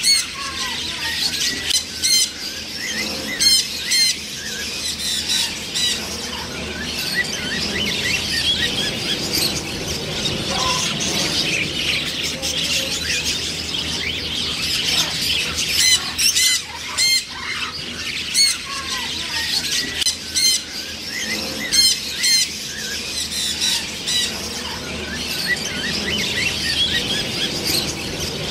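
A group of macaw parrots squawking: loud, harsh calls at irregular intervals over a continuous chatter of many birds.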